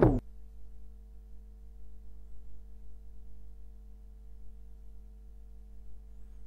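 A music track cuts off right at the start, leaving a faint, steady electrical mains hum with several even overtones.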